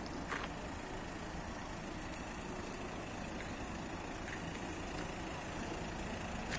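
Steady low rumble of idling vehicle engines, with street noise.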